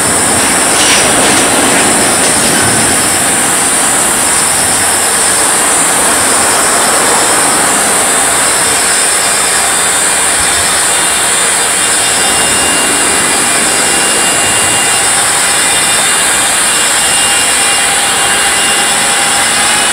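Electric freight locomotive standing with its equipment running in a steady loud rush, a faint whine climbing in pitch near the end; a steady high-pitched buzz sits over it throughout.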